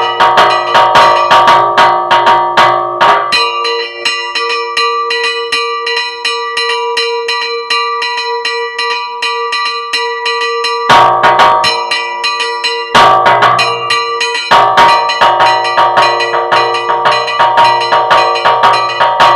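Bronze church bells rung in a hand repique: clapper ropes pulled rapidly while the bells hang still, so the strokes come close together with the bells ringing over each other. The mix of bells changes several times, about 3, 11, 13 and 15 seconds in.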